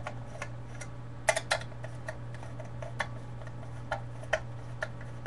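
Irregular small clicks and taps of metal parts being handled as a paintball magazine clip is worked off its adapter plate, with a louder double click about a second and a half in, over a steady low hum.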